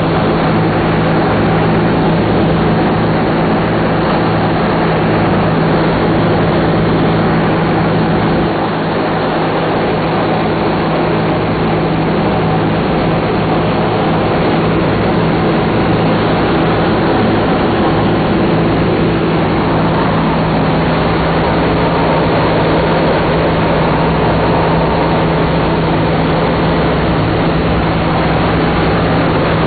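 B-17 bomber's Wright Cyclone nine-cylinder radial engines droning steadily in cruising flight, heard from inside the aircraft with a rush of air noise.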